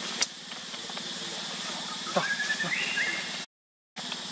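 Baby macaque giving a short squealing call about two seconds in that slides up in pitch and then steps higher, over a steady background hum. The sound cuts out completely for a moment near the end.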